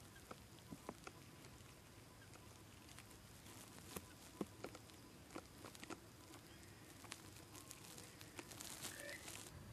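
Near silence: faint outdoor ambience with scattered soft ticks and clicks, and a faint short chirp near the end.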